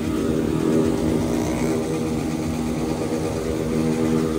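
A crowd of small street motorcycles revved flat out and held against their rev limiters. The engines make a steady, high-revving drone with a rough, chopping edge as the limiters cut in.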